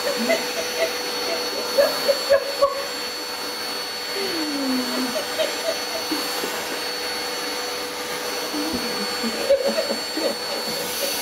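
Canister vacuum cleaner running steadily with a high whine, its brush nozzle drawn over a cat's long fur. A few short knocks come about two seconds in and again near the end.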